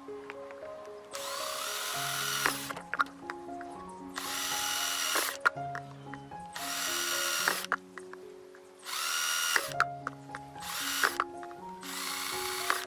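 Small electric motor run in six short bursts, each spinning up with a quick rising whine and holding steady for about a second before stopping, over background music.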